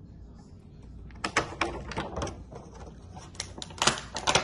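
Small plastic action-figure accessories clicking and clacking as they are handled, in quick irregular clusters that start about a second in and are loudest near the end.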